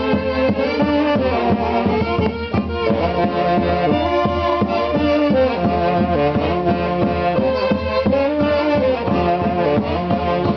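Band music led by brass horns playing a melody in held notes over a steady beat.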